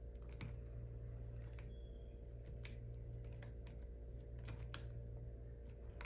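Scattered light clicks and ticks of a screwdriver turning the small screws in a plastic Legrand L21-30C connector housing, over a steady low hum.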